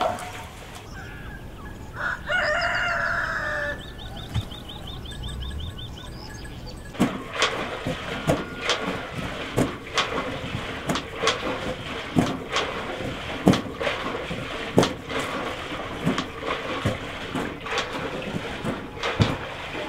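A rooster crows once, about two seconds in, followed by a fast run of short high calls. From about seven seconds on, a steady series of sharp knocks, a little more than one a second, continues to the end.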